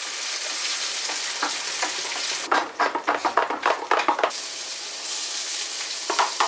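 Food frying in a pan with a steady sizzle. Over it comes a rapid run of taps about two and a half seconds in, and again near the end.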